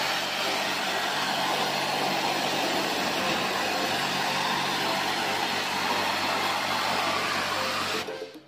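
High-pressure washer running and spraying a jet of water onto an air-conditioner unit, a steady hiss over a constant motor hum. It cuts off suddenly near the end.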